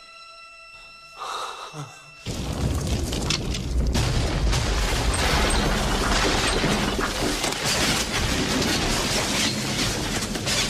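Film sound effects of a stone temple collapsing: a deep, dense rumbling with crashes and cracks of falling rock, coming in suddenly about two seconds in, after a few faint held notes of music.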